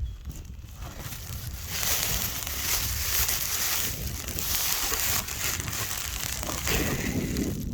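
Dry leaf litter and brush crunching and rustling, starting about two seconds in and easing off near the end, over a low steady rumble.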